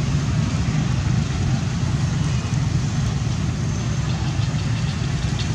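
A steady low rumble, like a motor vehicle engine idling.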